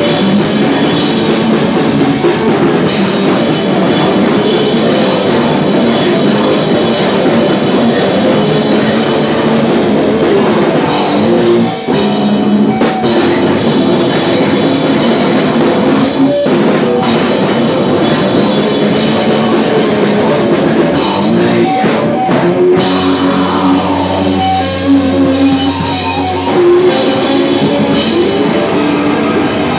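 Live rock band playing loud: distorted electric guitar over a drum kit, with a couple of brief stops between sections.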